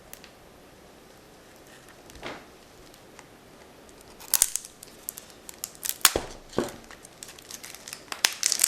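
Sealed trading-card box being handled, with irregular crinkling and sharp clicks of packaging. It is mostly quiet for the first few seconds, and the handling sounds start about four seconds in.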